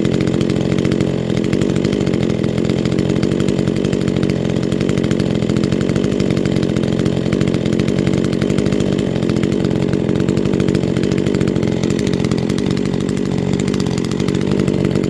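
Ported Neotec NH841 two-stroke chainsaw running steadily.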